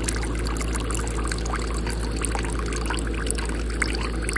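Cocktail poured from a shaker into a martini glass in a thin, steady stream, trickling and splashing into the drink.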